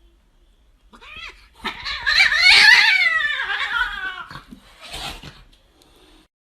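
A dog's drawn-out vocalizing, a run of pitched calls that slide up and down, starting about a second in, with one shorter call near the end.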